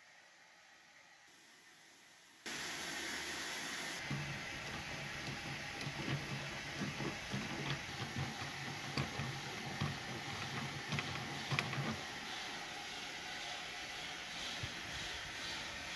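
Steady hiss of background noise with scattered faint knocks and clicks, coming in abruptly a couple of seconds in after near-quiet.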